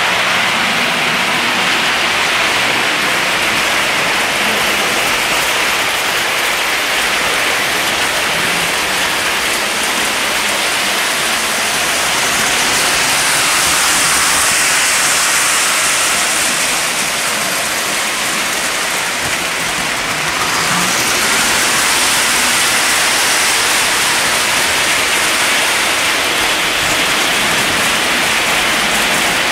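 O gauge model train running on three-rail metal track: a steady rolling hiss that swells a little twice, as the train passes nearer.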